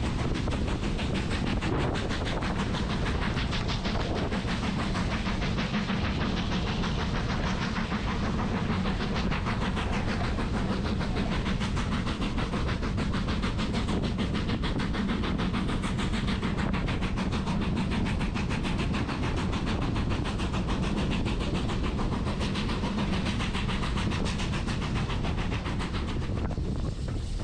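Train hauled by a BR Standard Class 2 steam locomotive running steadily along the line: a continuous rumble and rattle of wheels on the track.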